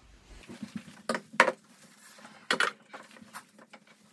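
Tripod and camera gear being handled and set up: a series of light clicks and knocks, the sharpest about a second and a half in, over a faint steady hum.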